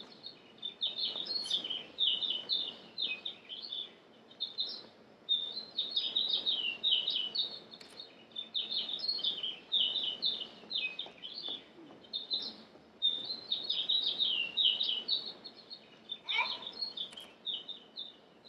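Recorded birdsong played as a stage sound cue: many small birds chirping and twittering in quick high runs, nearly without a break.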